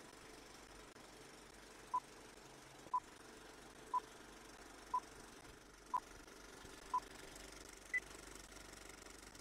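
Film-leader countdown beeps: six short beeps at one pitch, exactly a second apart, then a higher final beep, over a faint steady hiss.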